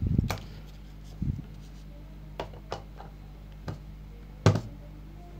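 A few scattered clicks and knocks from handling the bench wiring setup: a low thump at the start, another about a second in, then light clicks and one sharper click about four and a half seconds in, over a steady low hum.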